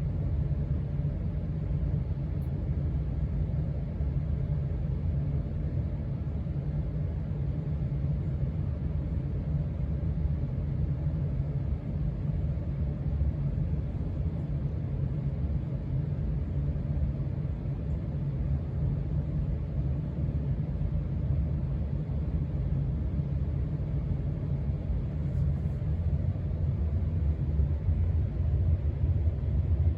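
1993 Casablanca Stealth ceiling fan running, heard as a steady low rumble of moving air.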